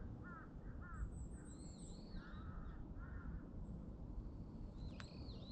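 Wild birds calling in the woods: a run of short arched chirps in the first three seconds, a brief high trill about a second in, and more high arched notes near the end, over a steady low background noise.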